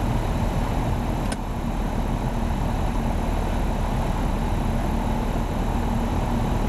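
Piper Warrior's four-cylinder Lycoming engine idling with the power pulled all the way back, under a steady rush of air noise in the cabin as the plane glides on a simulated engine-out approach.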